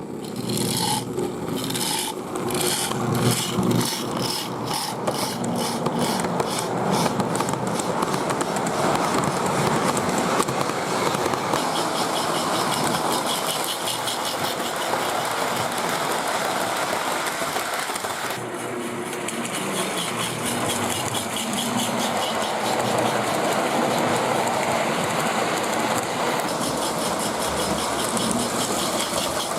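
Lionel MPC-era Pennsylvania 2-4-2 O gauge toy steam locomotive running under power with its mechanical sound-of-steam unit, nicknamed the 'Rock Tumbler'. It makes a rhythmic chuff that speeds up over the first ten seconds or so as the train gathers speed, then runs on steadily with the clatter of the train on the track.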